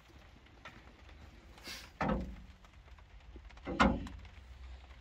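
Two knocks about two seconds apart, the second louder, each with a short ringing decay, as wooden rods hung with sausages are set into a smokehouse's metal frame.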